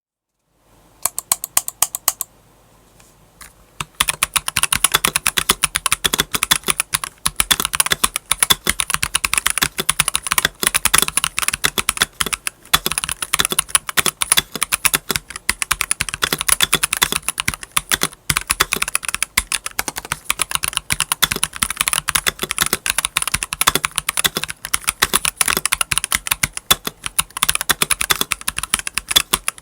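Fast typing on an Akko 5075 mechanical keyboard. A short run of keystrokes comes about a second in, then a pause, then rapid typing without a break. Its stock keycaps sound hollow and cheap to the reviewer.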